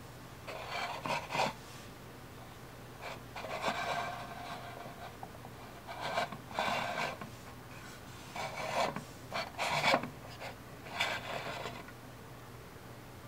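A plastic figure on its chair base being turned by hand on a wooden tabletop, the base rubbing and scraping against the wood in about five separate bursts.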